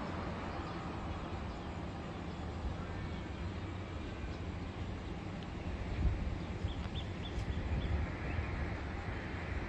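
Steady low rumble of distant city road traffic heard from high up, with a few faint high chirps about two-thirds of the way through.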